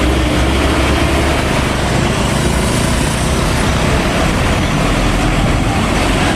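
Heavy truck engine running steadily with road noise: a loud, even, deep sound that starts suddenly just before and holds without a break.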